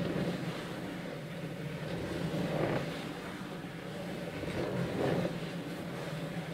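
Wooden geared drawing machine running, its turning discs and pen arm making a steady low rumble. A noisy swell comes back about every two and a half seconds as the mechanism goes round.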